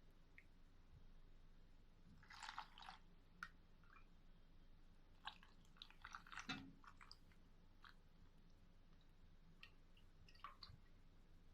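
Faint, soft squishing and light clicks of stuffed grape leaves and stuffed eggplants being packed into a cooking pot by hand, in a few short clusters.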